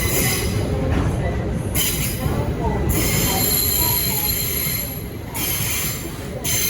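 Freight train rolling through a station, its wheels squealing in several high, steady tones over a low rumble. The squeal breaks off about five seconds in and starts again near the end.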